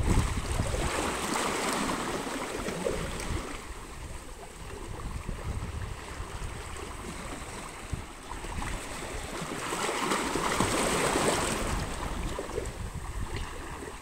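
Small sea waves washing and splashing over shoreline rocks, swelling louder twice: at the start and again around ten seconds in.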